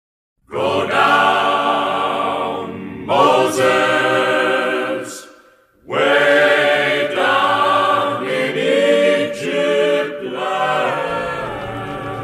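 Choir singing slow, sustained notes, breaking off briefly about five and a half seconds in, then fading near the end.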